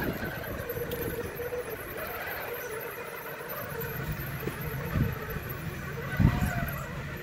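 A 1/10-scale RC rock crawler's electric motor and gears whine steadily as the truck crawls up a concrete rock obstacle. Two short low thumps come about five and six seconds in.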